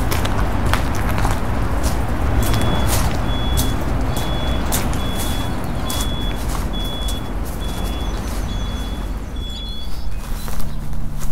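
A vehicle's backup alarm beeping steadily, a little more than one beep a second, over the low rumble of a running engine; the beeping starts about two seconds in and stops shortly before the end.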